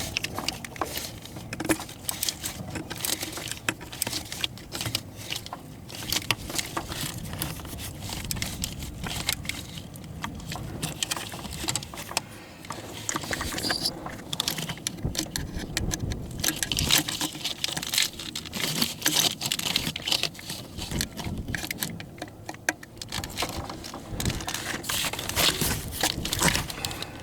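Irregular clinks, rattles and scrapes of hand tools and metal parts being handled.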